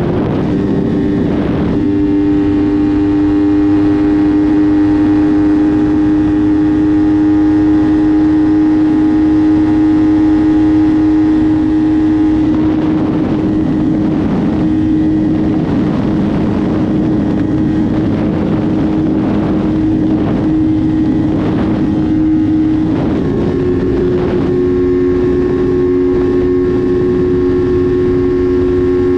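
Motorcycle engine running at a steady speed under way, its note holding level and shifting pitch a little about two seconds in and again about three-quarters of the way through, with wind buffeting the microphone.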